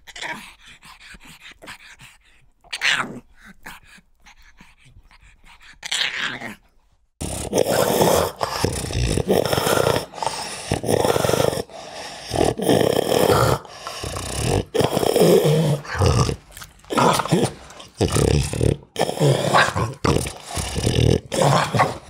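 Pug dog vocalising: a few short, separate yelps in the first seconds, then from about seven seconds in a louder, almost unbroken run of groaning, breathing and snarling.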